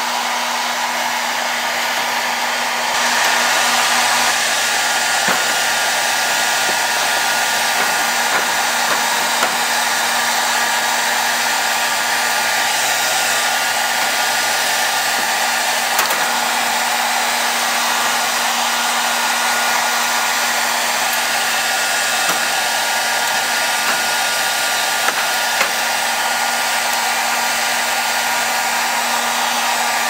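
Electric hair dryer running steadily: a constant rush of air with a steady hum, louder from about three seconds in.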